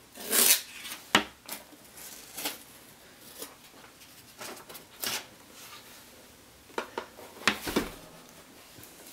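Handling noises: scattered rubbing and scraping with a few sharp clicks and knocks, the loudest about a second in and near seven and a half seconds.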